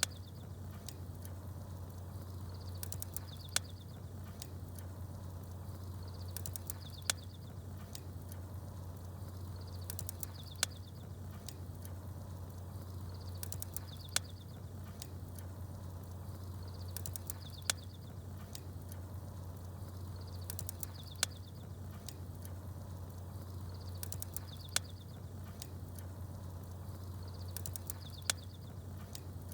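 Small birds chirping briefly high up and a single sharp fire crackle, the pair coming back about every three and a half seconds with the same timing each time, as in a short repeating loop, over a steady low hum.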